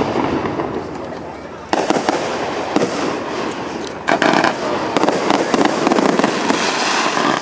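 Fireworks display: a series of bangs and bursts from shells and mines fired off a launch rack. A sharp report comes about two seconds in, and a rapid run of reports follows from about four seconds on.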